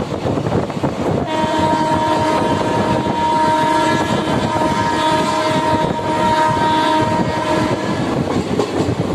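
Locomotive horn of the Danapur–Sahibganj Intercity Express giving one long blast of about six and a half seconds, starting about a second in. Under it is the steady rumble and clatter of the train's wheels on the rails as it rolls into the station.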